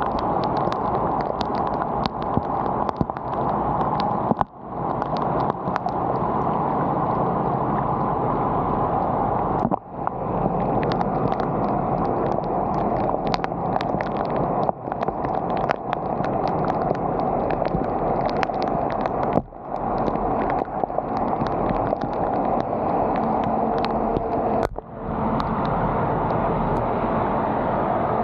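Steady rush of floodwater draining through a road culvert, with many small sharp ticks like rain on top. The sound drops out briefly about every five seconds.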